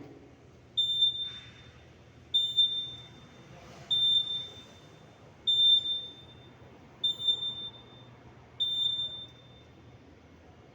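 Fire alarm control panel buzzer sounding a repeating pattern of six short, high-pitched beeps, about one every second and a half. This fits the panel's trouble signal for smoke sensors removed from two floors.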